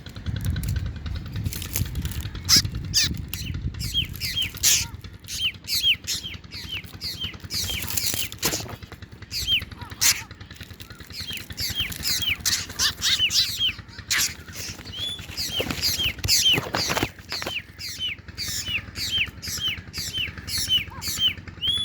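Drongo chicks in the nest calling: a steady run of short, high, hooked chirps, about three a second, with harsher rasping calls mixed in. A low rumble runs under the first few seconds.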